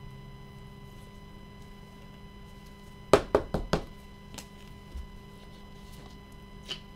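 A quick cluster of sharp knocks and clicks about three seconds in, then a few lighter taps, from cards and packs being handled on a tabletop, over a faint steady electrical hum.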